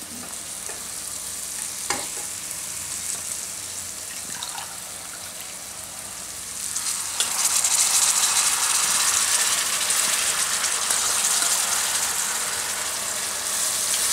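Tomato-onion masala sizzling in oil in a kadai, with a couple of light taps. About seven seconds in, wet chopped spinach goes into the hot pan and the sizzle jumps much louder and stays loud.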